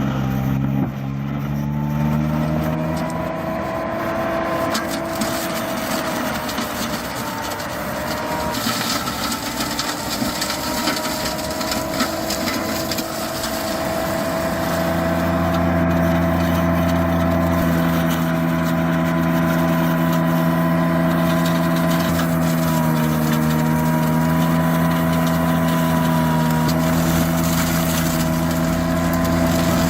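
Lumag SSA 400E firewood saw-splitter running under its 7.5 kW electric drive: a steady machine hum and whine whose pitch shifts a little as it works, growing stronger about halfway through.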